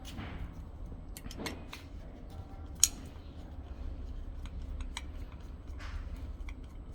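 Scattered small clicks and taps of the Kaadas S500 smart lock's plastic housing as its clipped cover is worked open and handled, the sharpest click a little under three seconds in.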